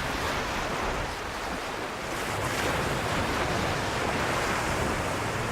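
Sea surf washing onto a shore: a steady rush of waves that swells slightly a couple of seconds in.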